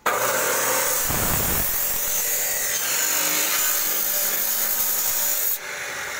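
Electric grinder's abrasive wheel cutting into a metal rod, throwing sparks: a loud, steady grinding hiss that starts suddenly. About five and a half seconds in it drops to a quieter, duller run.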